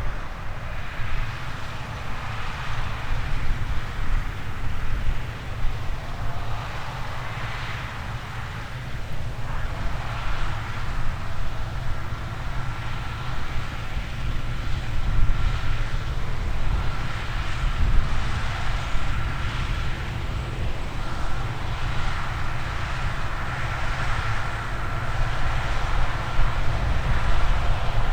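Large harvest machinery running steadily, a heavy low rumble with a steady high whine that comes in about ten seconds in.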